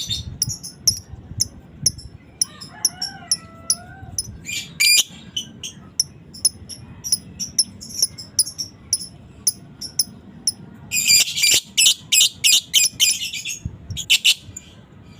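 Lovebird chattering: a quick, uneven string of short high-pitched chirps and clicks, breaking about eleven seconds in into a dense, loud rattling run of chirps, the excited 'ngekek' chatter of a fighter lovebird.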